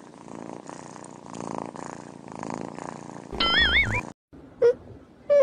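Kittens purring, steady for about three seconds, followed by a brief high-pitched warbling squeak. Two short mews come near the end.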